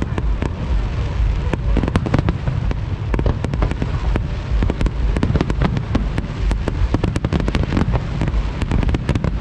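Aerial fireworks display: shells bursting overhead in a close run of sharp bangs and crackles over a steady low rumble.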